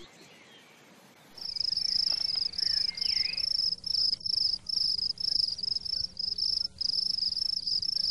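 An insect calling, a high-pitched buzzing trill broken into short pulses about two a second, which starts about a second and a half in after a brief lull.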